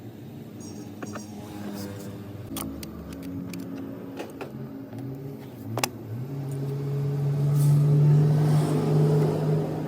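A car engine running; about six seconds in its pitch rises and it gets louder, then holds steady. Scattered clicks and knocks are heard throughout.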